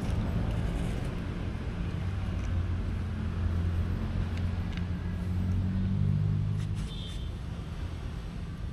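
A nearby motor vehicle engine running with a steady low hum that shifts pitch slightly and then drops away about seven seconds in. A few faint clicks of a metal spoon against a plate sound over it.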